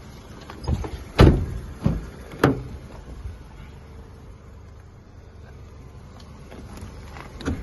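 Car doors of a Citroen C4 hatchback being shut and opened: a few clunks in the first two and a half seconds, the loudest about a second in, then only a low background.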